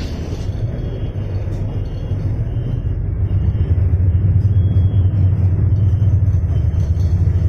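City bus engine and road rumble heard inside the moving bus, a steady low drone that grows louder about three seconds in.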